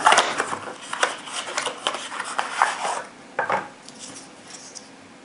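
A cardboard ammunition box being opened and its tray of 20 rifle cartridges slid out: scraping and rubbing of cardboard with sharp clicks of the cartridges in the tray for about three seconds, one more short pair of clicks about three and a half seconds in, then it settles.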